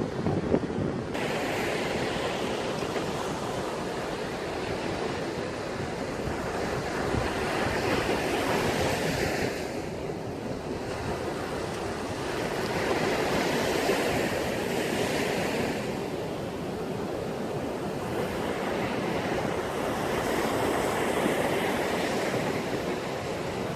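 Sea waves breaking and washing up on the shore, the surf swelling and easing every few seconds, with some wind buffeting the microphone.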